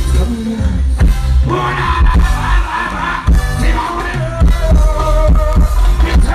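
Loud music over a PA system: a heavy, pulsing bass beat, with a singing voice coming in about one and a half seconds in.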